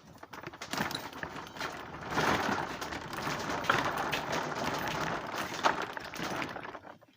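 A converted dresser tool box rolling across the floor on its casters, with rattling and knocking from the box and its contents.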